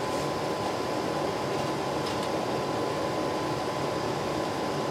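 Steady rushing background noise with a faint steady hum, and two faint clicks, one near the start and one about two seconds in, as glass jars are set down into the water-bath canner.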